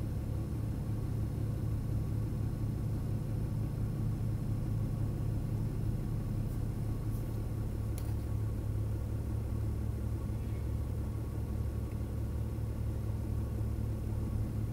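Steady low mechanical hum that does not change, with a faint sharp click about eight seconds in.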